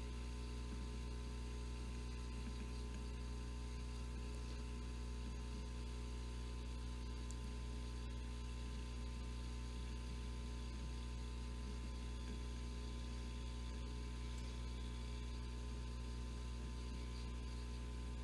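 Steady electrical mains hum with a faint hiss, unchanging throughout, with no other sound standing out.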